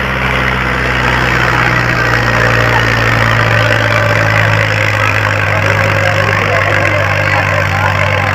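New Holland 480 tractor's diesel engine running steadily under load, pulling a disc harrow through the soil.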